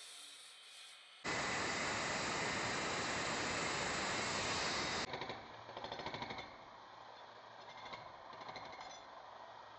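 Concrete-cutting blade machine sawing through a reinforced concrete slab. A loud, steady cutting noise starts abruptly about a second in, then drops about five seconds in to a quieter, rougher sound with a fast pulsing.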